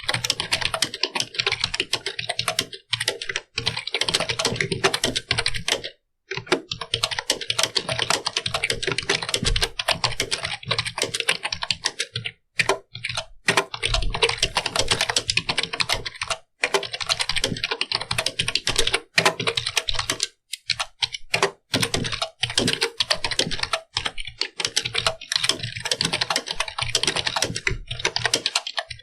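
Fast, continuous typing on a computer keyboard: dense clicking keystrokes, broken by a few short pauses.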